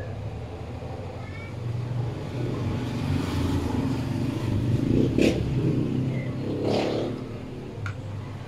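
A motor vehicle's engine running as it passes, swelling to its loudest about five seconds in and easing off near the end.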